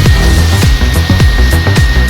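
Electronic background music with a heavy bass-drum beat, about two kicks a second, over a thin steady high-pitched whine.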